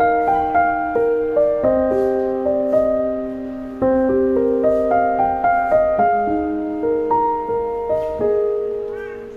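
Solo piano music: single notes and chords struck at a steady pace, each fading away, growing softer near the end.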